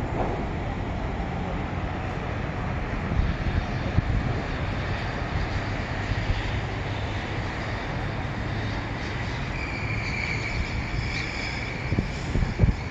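Steady city traffic noise with wind rumbling on the microphone, gusting about four seconds in and again near the end. A thin high whine joins about ten seconds in.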